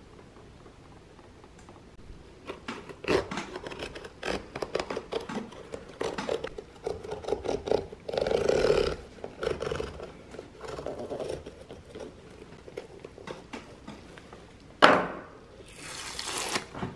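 A knife cutting through the stitching along an old leather shoe sole, heard as a run of short scraping, crackling cuts. Near the end comes a sudden loud rip as the old sole is torn away from the welt, then a brief scrape.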